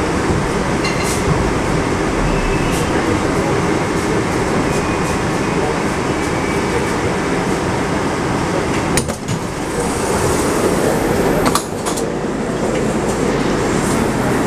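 Carriage noise of an 81-765.2 "Moskva" metro train running and coming to a stop at a station. About nine seconds in, the sound changes as the doors open and the rider steps out onto the platform.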